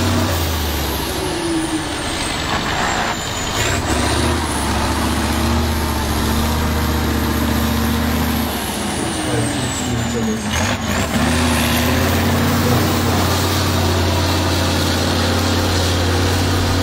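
Heavy off-road trial truck's diesel engine running hard under load as the truck climbs out of a sand pit. Its revs dip and recover twice, a few seconds in and again about ten seconds in, with a whine that falls and rises along with them.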